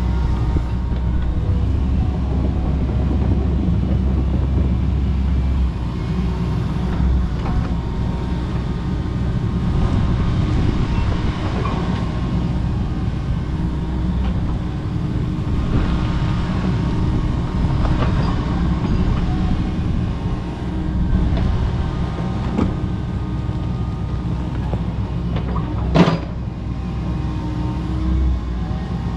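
Kobelco SK85 MSR excavator's diesel engine running steadily, with one sharp crack near the end.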